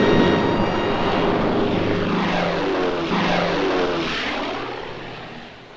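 Piston aircraft engines droning overhead at night, several engine tones sliding down in pitch as the planes pass, then the drone fading away near the end.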